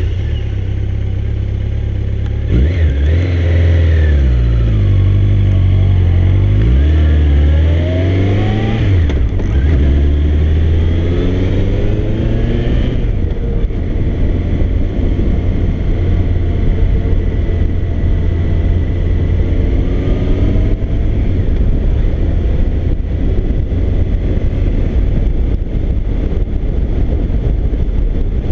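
Motorcycle engine idling, then pulling away and accelerating up through the gears, its pitch rising and dropping back at each shift several times. It then settles into a steady cruising drone mixed with wind noise.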